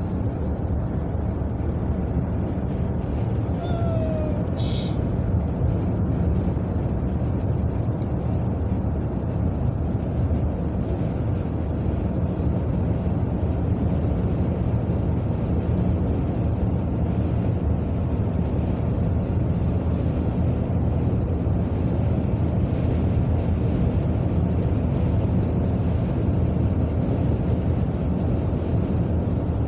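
Steady road and engine noise of a car cruising at highway speed, heard from inside the cabin, with a brief faint squeak about four to five seconds in.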